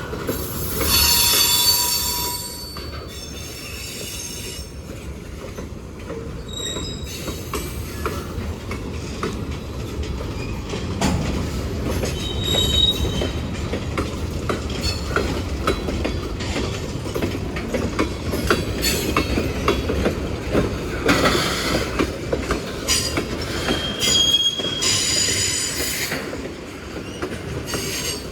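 Norfolk Southern freight train's cars rolling past, with steady rumble and clicks as the wheels cross the rail joints. Several high-pitched wheel squeals break through, the loudest about a second in and another run near the end.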